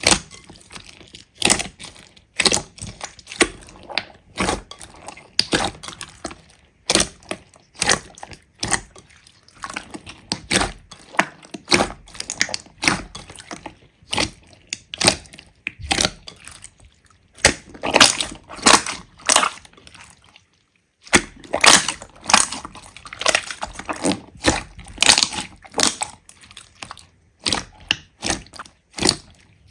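Slime being squeezed and poked by hand: a dense run of crackling, popping clicks, with a brief silent break about twenty seconds in.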